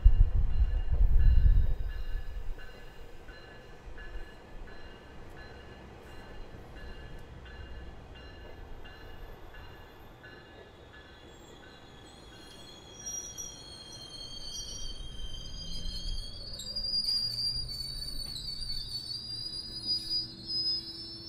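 GO Transit bilevel passenger train rolling past at low speed. A heavy low rumble comes at the start, then its steel wheels squeal on the rail from about halfway on, in several high tones that slide up and down.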